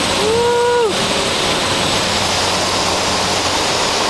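Steady, loud rushing cabin noise of a Cessna 208B Grand Caravan on landing: its turboprop engine, propeller and airflow heard inside the cockpit. Near the start a brief steady tone sounds for under a second over the noise.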